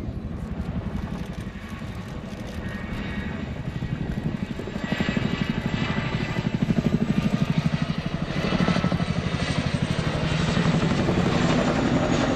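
Boeing Chinook HC2 tandem-rotor helicopter flying overhead, its twin rotors beating in a rapid, continuous pulse. It grows louder about five seconds in, with a thin high whine above the beat.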